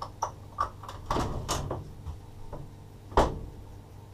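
Train cab interior: a steady low hum with a string of irregular knocks and rattles, the loudest a single sharp knock about three seconds in.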